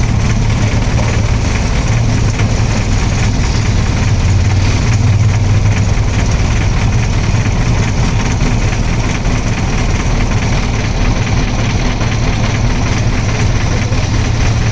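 Motorcycle engine idling steadily close by, a low even running sound with no revving.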